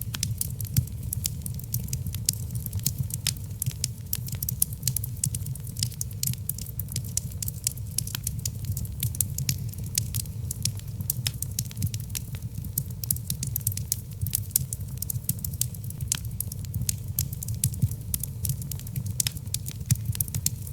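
Wood fire burning in a fireplace: a steady low rumble of flames under frequent sharp crackles and pops from the burning logs.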